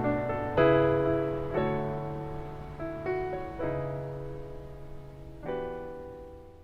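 Solo piano playing slow, soft chords, one struck about every second and left to ring, fading out near the end.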